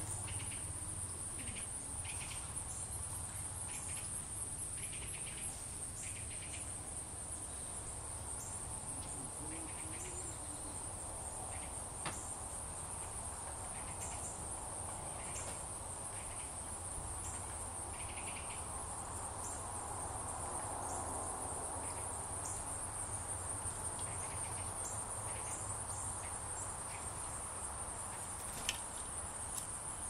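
Outdoor insect chorus: a steady, high-pitched trill that runs on without a break, with a few short faint chirps in the first seconds and occasional faint clicks.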